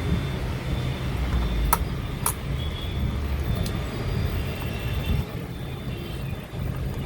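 Steady low background rumble with two sharp clicks a little under two seconds in, about half a second apart, and a fainter click about a second later.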